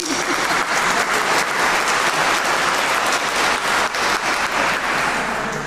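Audience applauding: a steady clatter of many hands clapping that eases slightly near the end.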